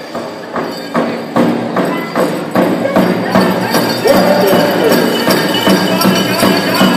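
Powwow drum song: a large drum struck steadily about twice a second, getting louder over the first few seconds, with a high singing voice coming in about four seconds in.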